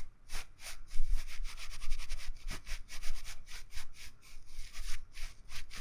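Rope rubbing and creaking in quick, irregular strokes, the sound of someone straining against being tied up, over a low rumble.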